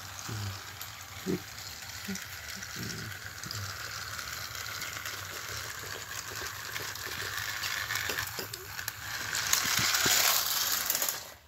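Battery-powered toy train engines running on plastic track, a steady motor whir with the clatter of wheels on the rails. It gets louder about nine seconds in as an engine passes close by.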